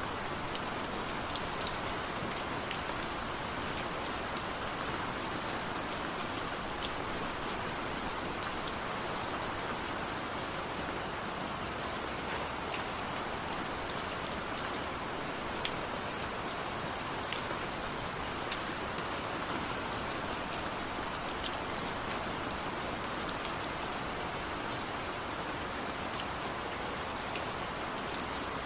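Steady rain falling: an even hiss with scattered sharp ticks of single drops striking close by.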